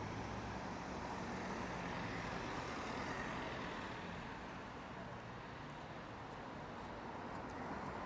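A motor vehicle's engine running steadily over outdoor street noise, growing fainter about halfway through.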